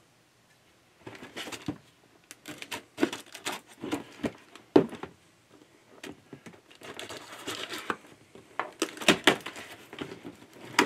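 Hands handling a cardboard mailing box: irregular taps, scrapes and rustles of cardboard, with one sharp knock about halfway through. Near the end the box's self-sealing flap is pulled open.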